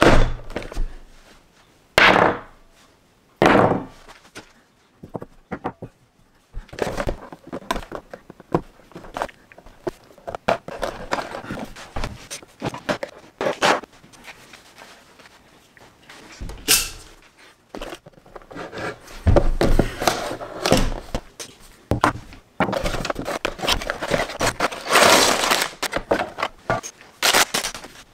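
A small cardboard LEGO set box knocked down onto a hard tabletop a few times, then opened. Its plastic bags of bricks crinkle and the bricks rattle as they are handled and laid out.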